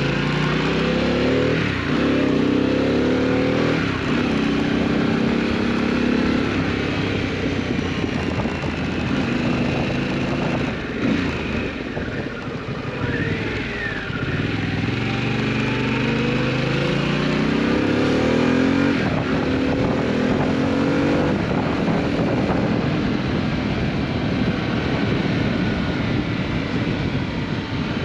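Harley-Davidson Pan America's V-twin engine through a Scorpion aftermarket exhaust, ridden hard on the road: the revs climb and drop back several times as it accelerates through the gears.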